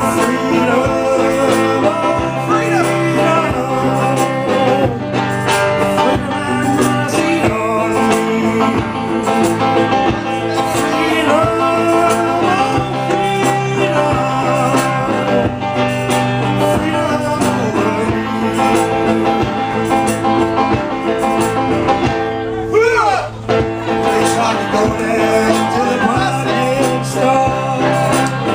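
Live song: a singer performing over guitar, with a steady low pulse underneath.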